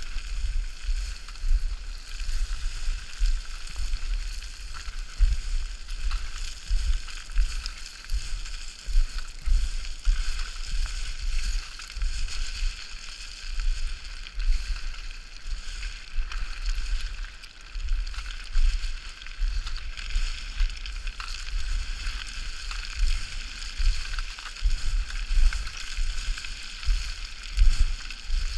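Footsteps running down loose scree: boots plunging and sliding through the stones with a steady gravelly crunching hiss, and a dull thud at each stride, roughly one or two a second.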